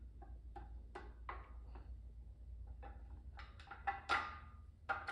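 Steel camshaft clinking against the cylinder head's cam journals and rocker arms as it is laid in and turned by hand: a run of light metallic taps with a short ring, a few louder knocks near the end.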